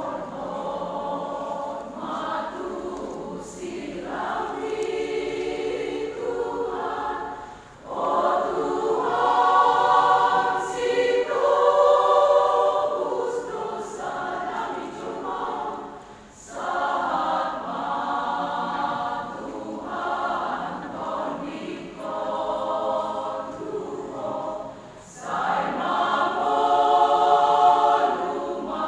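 Church choir singing unaccompanied in several parts, phrases broken by short breath pauses, swelling loudest in two climactic phrases.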